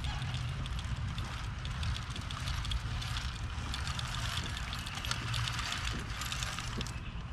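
Earthway push seeder rolling over tilled clay soil, its wheel and seed plate mechanism rattling with many quick clicks, over a steady low rumble.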